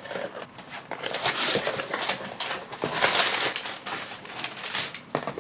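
Packaging rustling and crinkling as parcels are handled and opened by hand, in two louder stretches about one and three seconds in.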